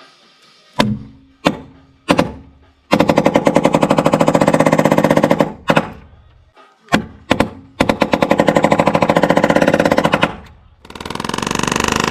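Several single sharp knocks, then a power tool hammering in rapid, even impacts in three runs of a few seconds each: work repeated fastener after fastener.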